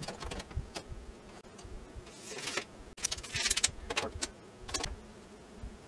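Scattered clicks, rattles and short rustles of handling as a steel tape measure is worked along a vinyl window frame.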